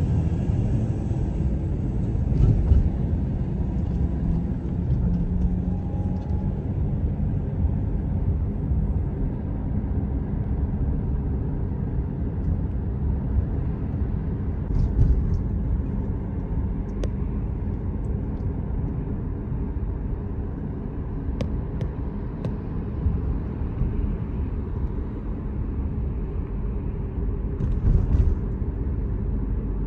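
Steady rumble of a car driving along a city road, engine and tyre noise heard from inside the car.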